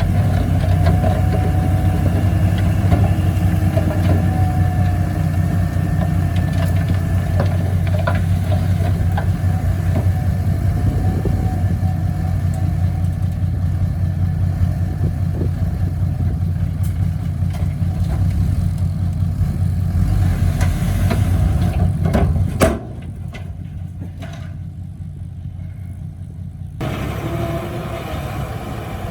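Heavy earthmoving machine's diesel engine running steadily with a strong low hum. The sound drops abruptly about three-quarters of the way through and comes back up a few seconds later.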